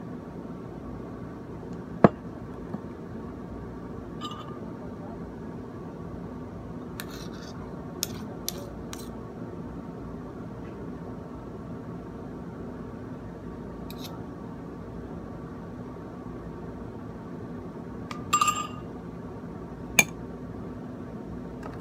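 Metal spoon clinking against a ceramic mug and a glass pitcher while whipped coffee foam is scooped across: a few sharp separate clinks, the loudest about two seconds in and a short ringing cluster near the end, over a steady low hum.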